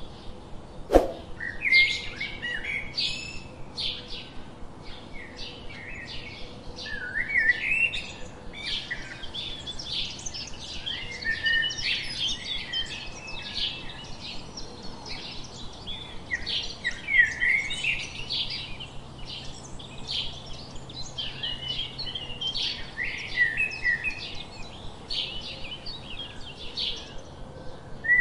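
Many small birds chirping and twittering in a busy, overlapping chorus of short high notes, with one sharp click about a second in.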